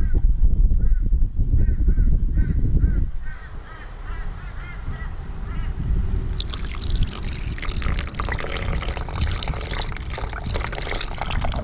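A bird calls over and over in short, quick notes, about two or three a second, over a low rumble for the first few seconds. From about halfway, water trickles and splashes steadily.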